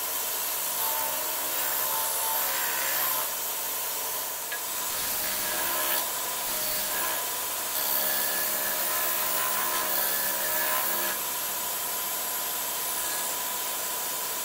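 Disc sander of a belt-and-disc sanding machine running steadily with a shop vacuum drawing off the dust, while a piece of wood is pressed against the spinning abrasive disc to round its corners. The wood rubs and hisses on the disc in several stretches over the first eleven seconds or so, then only the machine runs.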